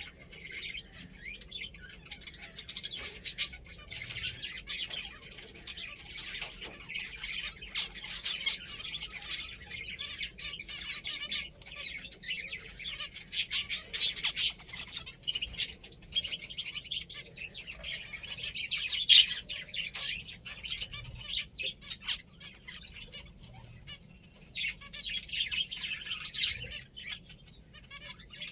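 A group of pet finches chirping: many short, high calls overlapping almost without pause, with a few louder peaks.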